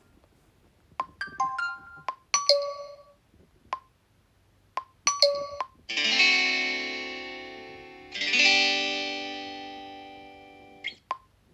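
Xiaomi Redmi 9A ringtone previews through the phone's speaker: a few short chime notes and sharp ticks, then two plucked guitar-like chords, each ringing out and fading over two to three seconds.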